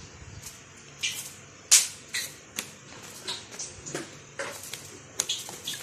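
Plastic bag of salt crinkling and rustling as salt is tipped out of it into a plastic tub of water, in irregular sharp crackles, the loudest a little under two seconds in.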